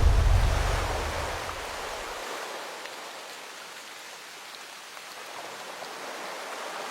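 Background music fading out over the first two seconds, its bass cutting off suddenly, leaving a steady, even rushing noise like rain or flowing water.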